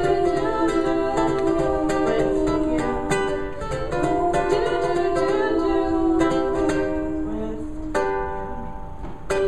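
Closing bars of an acoustic song on a strummed string instrument, chords strummed steadily. A final chord is struck about eight seconds in and left ringing.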